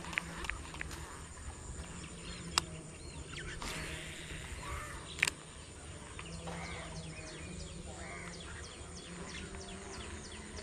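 A crow cawing a few times, the clearest calls about six and a half and eight seconds in, over a steady rural background. Two sharp clicks stand out, about two and a half and five seconds in.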